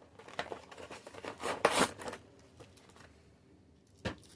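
Frozen meal's cardboard box being torn open by hand, with crinkling packaging, in a few rustling bursts with the loudest about halfway through. A single sharp knock near the end.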